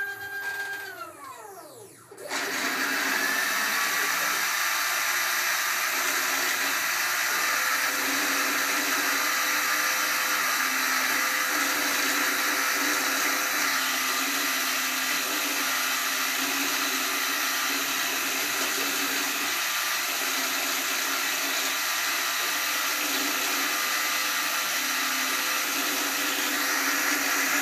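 CNC-converted G0704 milling machine running a program. Its stepper motors whine in rising and falling pitch sweeps as an axis moves. About two seconds in, the spindle motor starts and runs steadily and loudly, while the stepper tones keep stepping in pitch underneath as the axes move.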